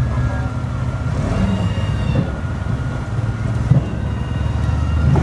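Engine of a small cargo truck loaded with cassava running at low revs, a steady low drone as it creeps across a weighbridge.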